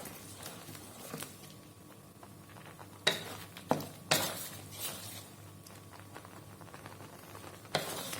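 Spatula stirring salted egg yolk sauce in a pan on the stove, with a few sharp clacks of the utensil against the pan about three to five seconds in and again near the end.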